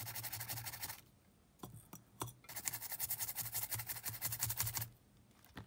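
A small brush scrubbing inside an opened Sony Walkman FX483 cassette player, cleaning the tape mechanism. It comes in two runs of rapid, scratchy strokes, with a short pause and a couple of light clicks in between.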